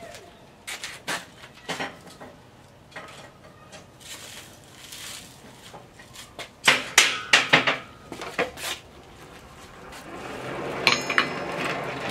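Blacksmith's steel tools clanking and knocking around the anvil and forge: scattered light clicks, then a quick run of sharp metal clanks about seven seconds in. Near the end a steady rushing noise swells up under a few bright metallic clinks.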